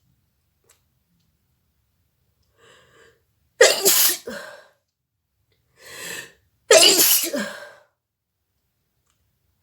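A woman sneezing twice, each sneeze led by a short in-breath, the second coming about three seconds after the first.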